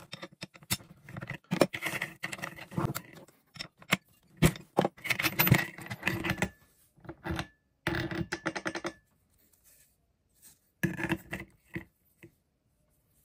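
Handling noise from a Makita GA5030R angle grinder's spindle parts: the two-pin spanner clicks and scrapes on the lock nut, then the flap disc and flange are lifted off, giving a run of metal clicks, taps and scrapes. There is a pause near the end, followed by a few more clicks.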